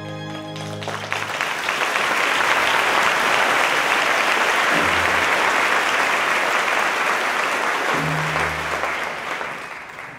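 Theatre audience applauding as the music ends about a second in; the clapping fades away near the end.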